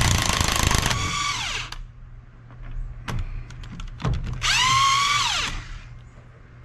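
Cordless impact wrench loosening the nut on a shock absorber's piston rod, run in two bursts. The first burst hammers and rattles for under two seconds; the second, about two and a half seconds later, lasts about a second. Each ends in a falling whine as the motor winds down, with a few light clicks between them.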